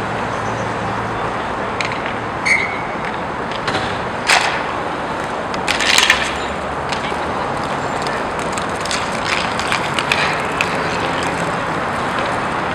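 Inline roller hockey in play: a steady rolling rumble of skate wheels on the rink floor, broken by scattered sharp clacks of sticks and puck. The loudest cluster of hits comes about six seconds in.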